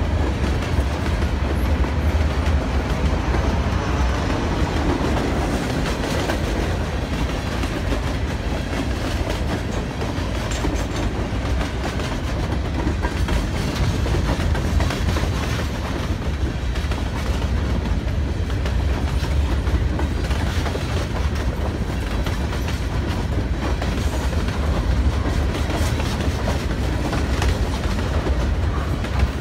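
Freight cars of a passing train rolling by: the steel wheels make a steady rumble on the rails, with clicking as they cross rail joints.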